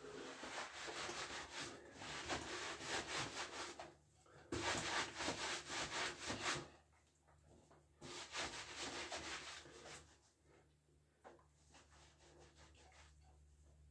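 Washcloth scrubbing soapy skin in quick rough strokes, in three stretches of about two seconds each, the middle one the loudest, then lighter scattered rubbing.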